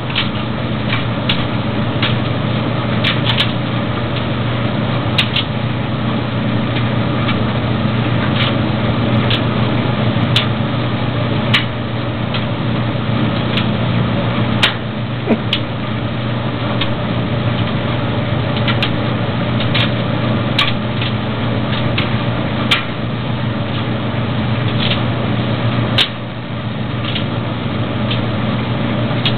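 Maytag DG608 gas dryer running: a steady motor-and-drum hum with irregular light clicks and taps scattered throughout.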